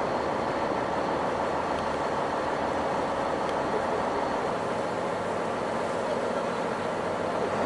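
Fishing boat's engine running steadily under way, a constant drone with no change in pitch or level.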